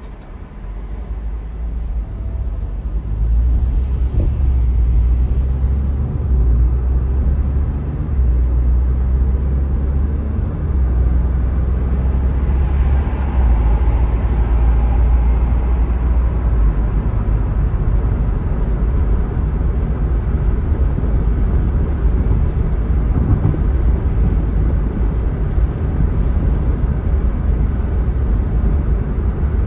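A car driving on a city road: a steady low rumble of road and engine noise that builds over the first few seconds as the car pulls away from a stop, with a brief swell of higher hiss about halfway through.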